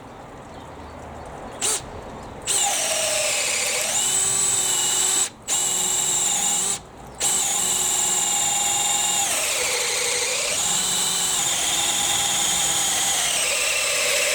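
Makita XPH06 18V cordless hammer drill boring an 18 mm auger bit into treated pine in gear setting 2: a short trigger blip, then a steady motor whine that sags in pitch and recovers several times as the bit loads up, with two brief stops. The bit is going through a knot in the timber.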